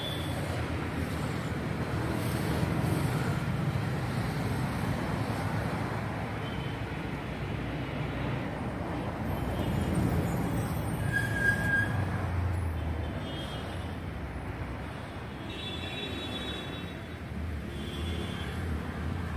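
Urban street traffic: a steady hum of passing vehicles that swells and fades, with a few short faint high tones such as distant horns.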